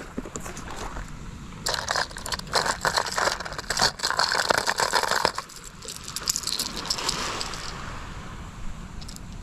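Clear plastic tackle box being opened and rummaged by hand: lures and their treble hooks rattling and scraping against the plastic trays, busiest from about two to five seconds in.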